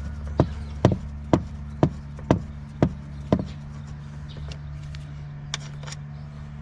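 Seven sharp knocks at an even pace of about two a second, then two lighter clicks near the end, over a steady low hum.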